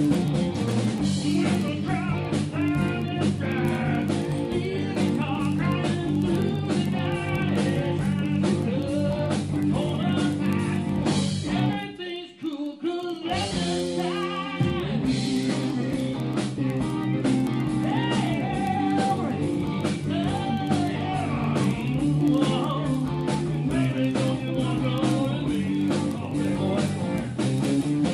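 Rock band playing a blues-rock number with a singer, guitar and a steady drum beat. About twelve seconds in the band stops almost completely for a moment, then comes back in.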